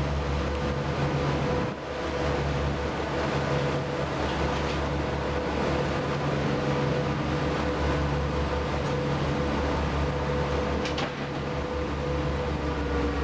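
Passenger ferry's engines droning steadily while under way: a low hum with a held mid-pitched tone over a hiss of wind and water, dipping briefly twice.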